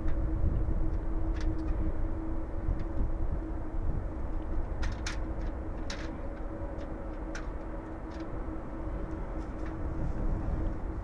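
Distant jet airliner engines running steadily at low power: a low rumble with a steady hum, and a few brief ticks.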